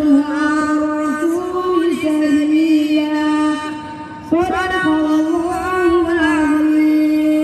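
A single unaccompanied voice chanting long held notes with melodic turns. About four seconds in it breaks off briefly, then starts a new held phrase.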